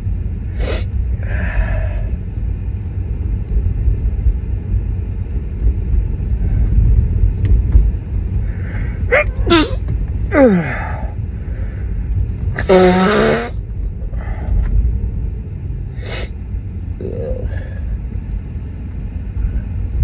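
A person sneezing in a car: short breathy sounds and pitched, falling vocal sounds about nine seconds in, then one loud sneeze about thirteen seconds in. A steady low car rumble runs underneath.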